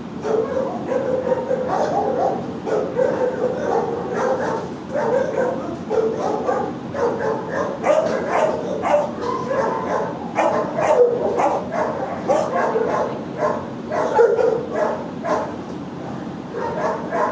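Several shelter dogs in nearby kennels barking and yipping over one another without a break, with a few louder barks standing out.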